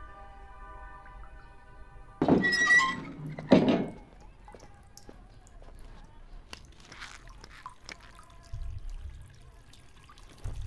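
Held notes of soundtrack music, which stop about two seconds in and are cut by two loud thuds about a second apart. After them come faint scattered knocks and small handling sounds.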